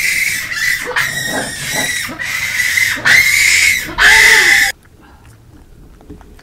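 Japanese macaques calling: a run of rising-and-falling coos, ending in two loud harsh screeches, then cutting off abruptly to a low hush about three-quarters through.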